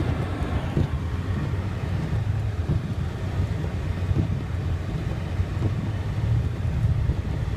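Steady low rumble of a Honda Ridgeline pickup driving through snow, heard from inside the cab.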